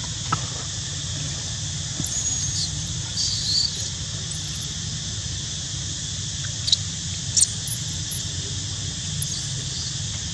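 Newborn long-tailed macaque giving short, very high, thin squeaks, four or so in two clusters, over a steady high hiss. Two sharp clicks come in the middle.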